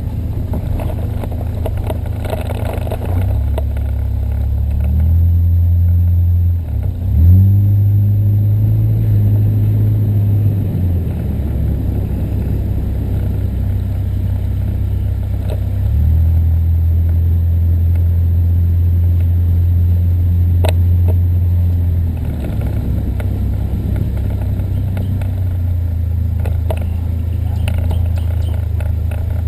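Car engine and road rumble while driving, a deep steady drone that swells and falls back a few times, with a brief dip and rise in pitch about seven seconds in.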